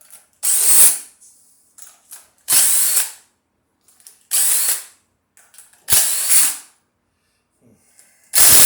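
Pneumatic wrench (air ratchet or impact wrench) run in five short bursts about two seconds apart, with a loud air hiss in each, spinning bolts off a Chevy 307 small-block V8 during teardown.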